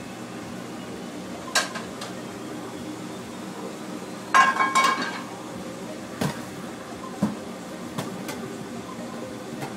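Metal platters and pans clanking on a stainless steel counter: a few single knocks and one louder, ringing clatter about halfway through, over a steady background hum.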